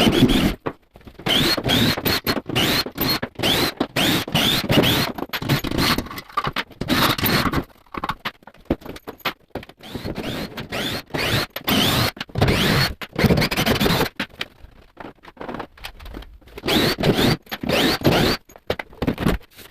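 Sped-up handling noise from unpacking a large laser cutter, chopped into many short pieces: rapid scraping and scratching with short rising squeaks.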